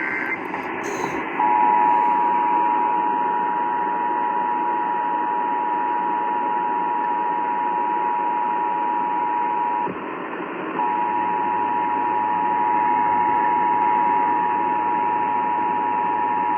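Emergency Alert System two-tone attention signal: two steady tones sounding together a little below 1 kHz, over the hiss of a radio receiver. It starts about a second and a half in, breaks off for about a second near the middle, and starts again. Right at the start there is a brief warble of SAME data-burst tones.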